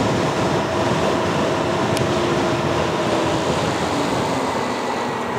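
EGO Power+ electric mini bike ridden at speed: a steady rush of wind and road noise, with a faint whine that drops slightly in pitch about four seconds in.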